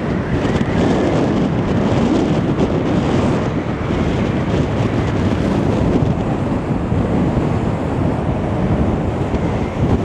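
Strong storm wind buffeting the microphone: a loud, continuous rush with a gusty low rumble.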